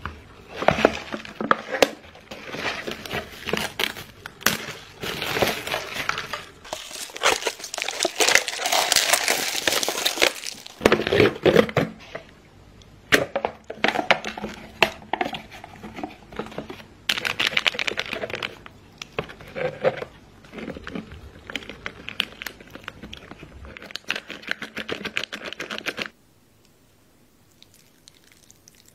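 Plastic wrap and paper lids of instant cup noodles crinkling and tearing as they are unwrapped and peeled open, with many sharp crackles. It stops abruptly near the end.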